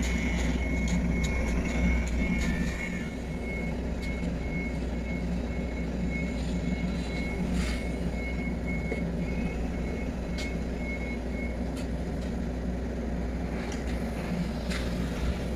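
Steady low drone of a running construction-machine engine, with a few short scrapes of steel shovels working wet concrete.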